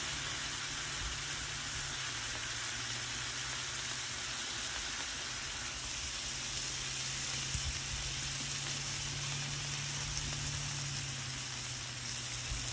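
Ground-beef smash burger patties sizzling steadily on a hot Blackstone flat-top griddle, one held flat under a burger press, with a low steady hum underneath.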